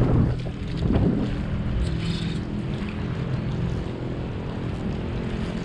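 A steady low motor drone, with gusts of wind on the microphone that are strongest in the first second or so.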